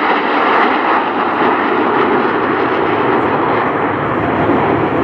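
Formation of ten Aermacchi MB-339 jet trainers, their Rolls-Royce Viper turbojets making a steady jet noise as the formation banks and climbs away.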